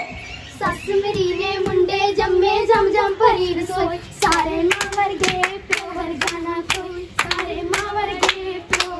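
A girl singing a Punjabi boli in a held, wavering voice for giddha dancing. Sharp hand claps join in about four seconds in, keeping time at roughly three a second.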